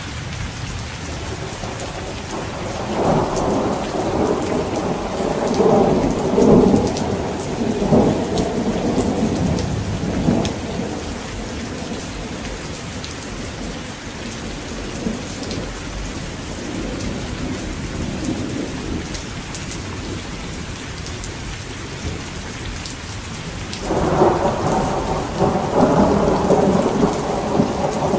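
Steady rain falling, with two long rolls of thunder: one rumbling for several seconds from about three seconds in, and another that breaks in suddenly near the end.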